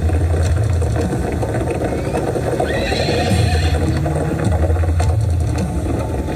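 Show sound effects of horses whinnying over hoofbeats and a deep, pulsing rumble, played through loudspeakers.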